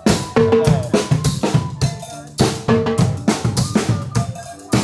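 Live band on a river boat playing a drum kit and large hand drums in a steady, driving rhythm, with some pitched notes held over the beat.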